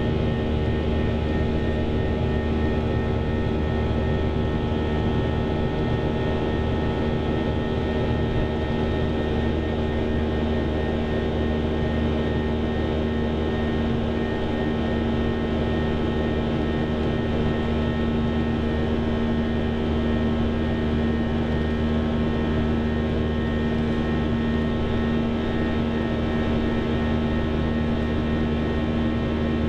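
Steady cabin noise of a Boeing 737-800 in flight: the even drone of its CFM56-7B turbofan engines, with several steady humming tones over the rush of air, heard inside the cabin.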